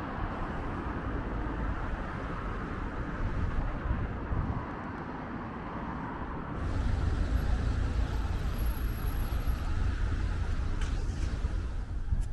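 City street traffic noise: the rumble of passing vehicles, growing louder a little over halfway through.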